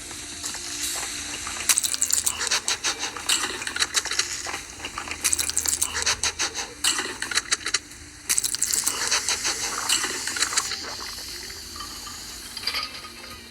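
Eating noises close to the microphone: clusters of crisp clicks and clinks, as of food and utensils being handled, in several bursts through the middle of the stretch.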